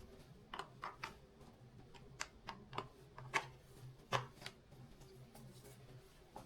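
Faint, irregular light clicks and taps, about a dozen spread unevenly, over a low steady hum.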